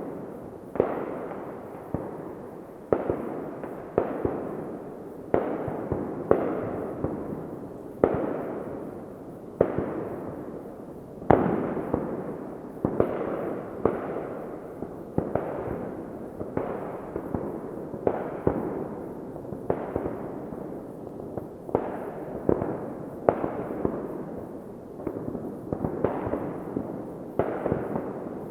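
New Year's Eve fireworks going off one after another, a steady series of sharp bangs about once a second, each trailing off in a long rolling echo, the loudest about eleven seconds in.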